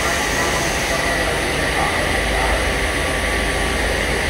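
Steady machinery noise of a running Teflon (PFA/ETFE/FEP) cable extrusion line, with a constant high whine over it.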